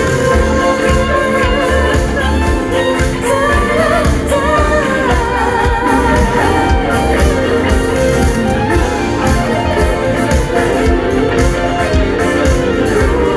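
Live pop-rock band playing, with a woman singing over electric guitars, bass and a steady drum beat with cymbals, heard from the audience.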